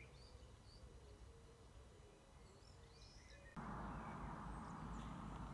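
Faint birds chirping in quiet countryside; about three and a half seconds in, a steady hiss sets in abruptly and stays.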